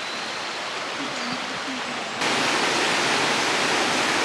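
Rushing water, a steady hiss that jumps suddenly louder and brighter a little over two seconds in.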